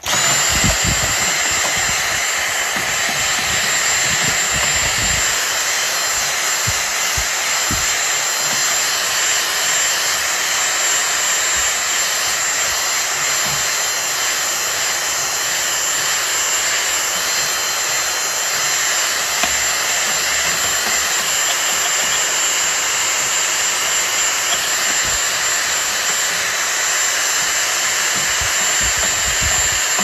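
Dyson cordless handheld vacuum cleaner switched on and running steadily with a high whine, sucking dust off a plastic air-conditioner louver panel. Low bumps and knocks sound in the first several seconds.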